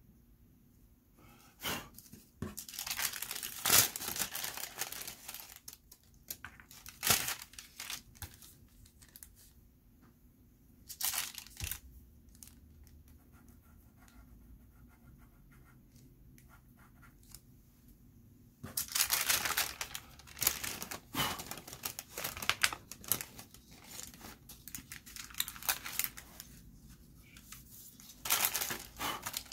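A thin sheet of tissue paper rustling and crinkling as it is handled over a pastel drawing, in loud scratchy bursts over the first few seconds and again through most of the second half. Between the bursts there are fainter light scrapes.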